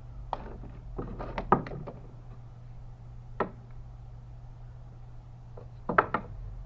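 Wooden knocks and thunks from boards being handled: a quick cluster about a second in, a single knock midway and a sharp double knock near the end.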